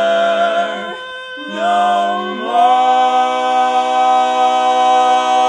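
Male barbershop quartet singing a cappella: a held chord thins to a single upper voice about a second in, then the other voices return and swell into the final chord, held long.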